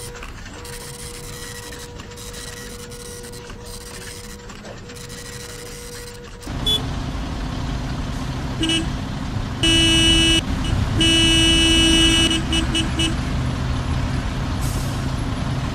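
A faint steady hum, then about six seconds in street traffic cuts in: engines running in a traffic jam and car horns honking, a few longer blasts followed by a quick run of short toots.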